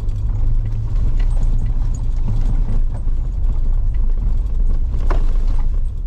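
Road noise inside a car's cabin while it drives along a bumpy dirt road: a steady low rumble of tyres and engine, with a few light knocks and rattles as it goes over ruts.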